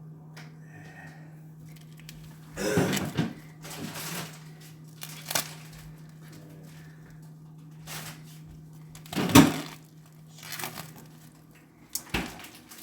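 Kitchen handling noises during food prep: a few short bursts of rustling and clattering, the loudest about two-thirds of the way in, over a steady low hum.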